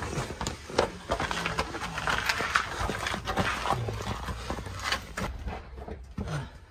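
Irregular scuffing, scraping and clicking as a person squeezes through a narrow crevice in a split conglomerate rock: clothing, shoes and a handheld phone rubbing and knocking against the rock walls. A few short low grunts are mixed in.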